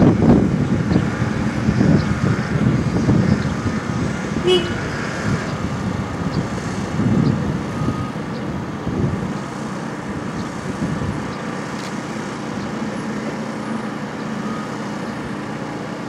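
Outdoor ambience: a low rumble of wind and distant road traffic, louder at first and easing off about ten seconds in.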